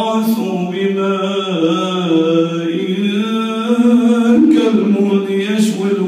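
A man's voice reciting the Qur'an in a slow melodic chant, holding long drawn-out notes that glide up and down in pitch.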